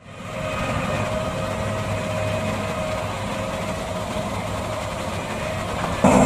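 John Deere 8400i self-propelled forage harvester's Liebherr V12 diesel running steadily as it drives, fading in at the start. Just before the end the sound jumps abruptly louder and rougher as the harvester is heard chopping corn.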